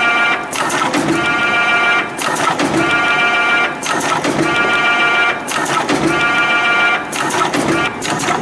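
CNC extension spring machine (YHM EF-620-W) running in steady production, coiling 1.2 mm wire into extension springs with English hooks. A high servo whine sounds through each coiling stroke, and a brief burst of sharp clicks as the hook is formed and the spring is cut off marks each cycle, repeating about every second and a half.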